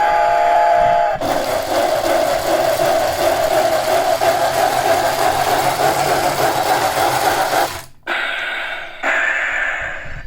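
Novelty locomotive alarm clock playing its train sound effect: a short chord-like train whistle, then a steady rhythmic chugging that stops briefly about eight seconds in and starts again.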